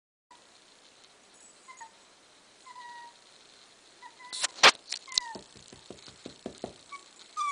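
Corgi puppy whimpering in short, high, falling whines. About halfway through there is a loud sharp knock, followed by a quick run of soft low thumps.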